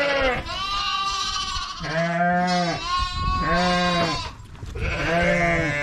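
Sheep bleating: about five loud calls one after another at different pitches, some overlapping, from several animals in the flock.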